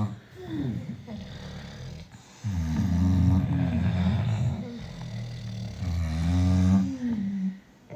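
Sleeping British Bulldogs snoring: low, rasping snores in long drawn-out breaths, loudest in two long stretches through the middle and latter part, typical of the breed's short, flat muzzle.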